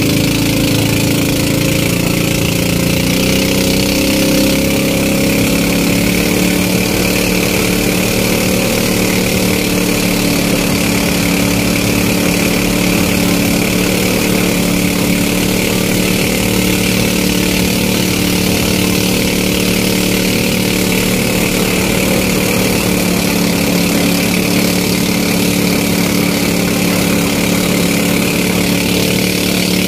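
Outrigger boat's engine running steadily at cruising speed, with a steady hiss of spray and rushing water over it.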